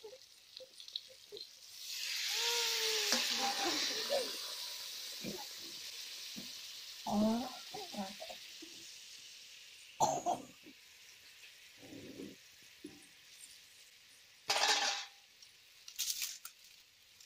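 Hot oil poured over chopped raw mango pieces in a clay pot, sizzling loudly at first and dying down over several seconds. A few sharp knocks near the end.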